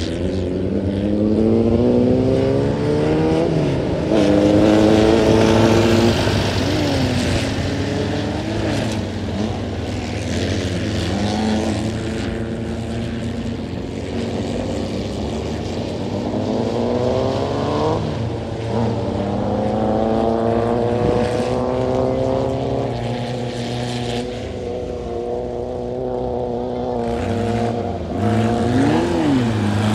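VW-engined tubular off-road race buggy running hard, its engine note climbing for a few seconds and then dropping as it accelerates and eases off again, over and over.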